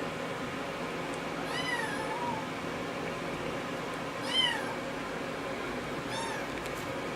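Singapura kitten meowing three times, short high-pitched mews that rise and fall.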